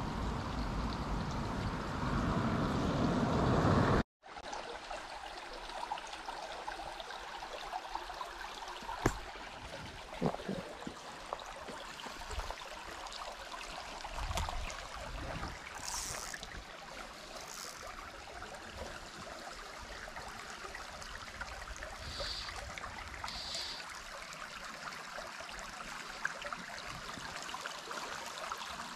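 A shallow stream trickling and gurgling steadily over stones. For the first four seconds a louder low rumble covers it, then cuts off suddenly. A few light knocks and brief high chirps sound over the water.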